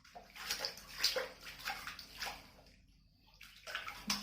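Water splashing and sloshing as a kitten is washed, in uneven splashes that ease off past the middle and pick up again near the end.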